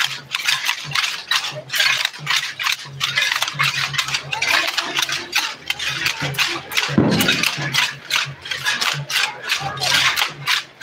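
Hand rattles of a procession dance troupe shaken in a steady rhythm, several sharp rattling strokes a second, over the voices of a crowd.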